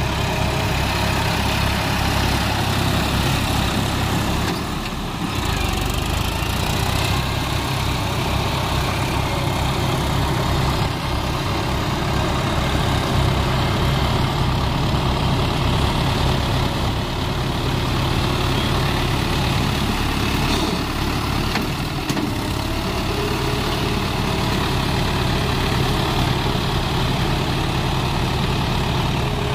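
Tractor diesel engines running steadily as the tractors work through a flooded, muddy paddy field, a continuous low chugging.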